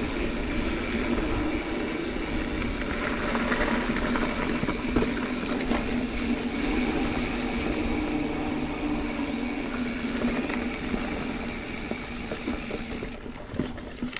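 Mountain bike rolling along a dirt trail: steady tyre and wind rumble with rattling from the bike, and a few brief knocks near the end.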